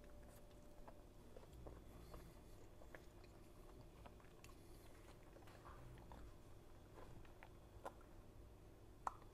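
Faint chewing of a mouthful of burrito: soft, scattered mouth clicks over near silence.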